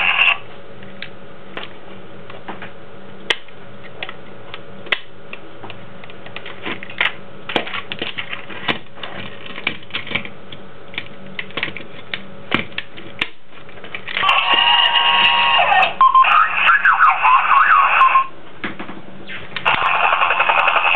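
Scattered plastic clicks and knocks of a toy helicopter being handled. About two-thirds of the way in, the toy's electronic sound effect starts: a loud, buzzing engine-like noise, then a wavering tone. After a short gap the buzzing noise comes back near the end.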